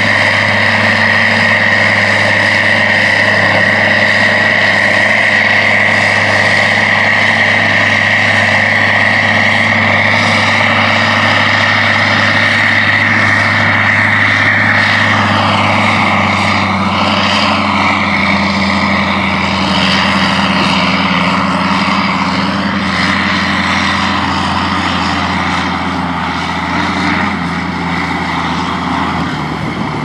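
AGCO White 6175 Workhorse tractor's diesel engine running steadily while pulling a grain cart, with a steady high whine over the engine. About halfway through the whine breaks off and the engine tones waver and shift.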